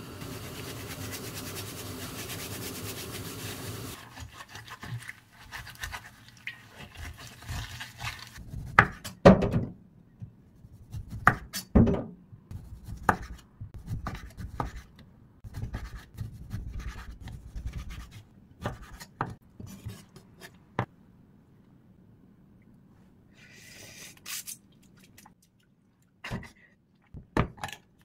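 Chef's knife slicing a lime thinly on a wooden cutting board: irregular knocks of the blade on the board, some sharp and loud, with pauses between runs of cuts. A steady rushing hiss fills the first four seconds, then stops.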